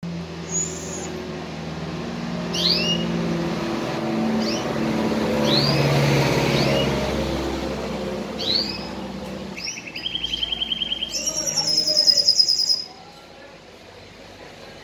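Canary singing: a series of separate down-sweeping chirps, then rapid trills about ten seconds in, a lower rolling trill followed by a loud high trill that cuts off sharply. A low background hum runs under the first part.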